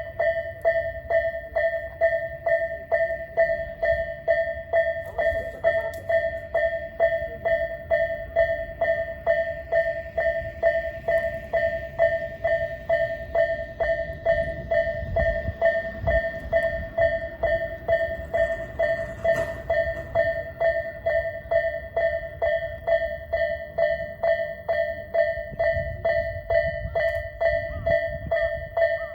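Railway level-crossing warning bell ringing in a steady, even rhythm of about two strikes a second, over the low rumble of a train.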